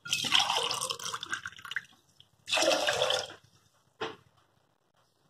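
Water poured from a steel cup into a pressure cooker over soaked basmati rice and green peas, in two pours, the first about two seconds long and the second shorter, with a short gap between them.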